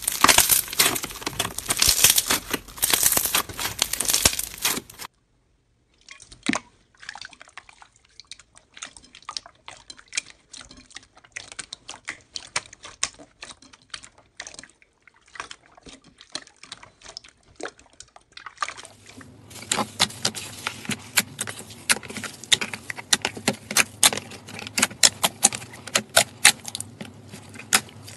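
Slime being squeezed, pressed and stretched by hand, making wet, sticky crackles, clicks and small pops. The sound stops briefly about five seconds in, is sparse for a while after, then grows denser and louder as thick slime is pulled.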